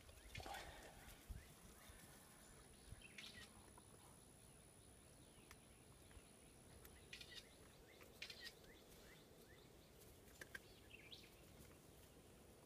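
Near silence: faint outdoor background with a few brief, faint chirps scattered through it, and a thin high steady tone for a few seconds in the middle.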